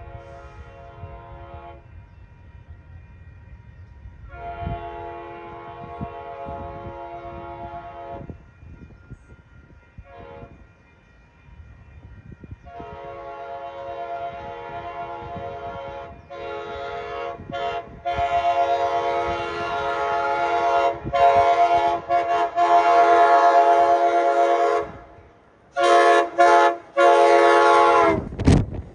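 Amtrak Pacific Surfiner train's multi-chime air horn sounding a series of blasts over the rumble of the train: two long blasts, a brief toot, then a long blast that grows steadily louder as the train approaches. The last, loudest blast drops sharply in pitch as the locomotive passes close by.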